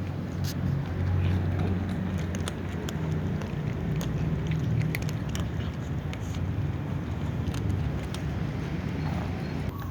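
An engine running steadily with a low hum, with scattered small clicks over it.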